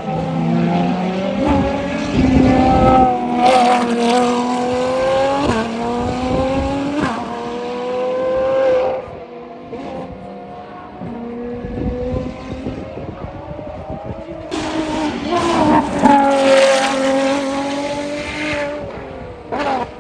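Ferrari race car engines at high revs accelerating past, rising in pitch and dropping sharply at each upshift. There are two loud passes, one early and one near the end, with a quieter engine drone between them.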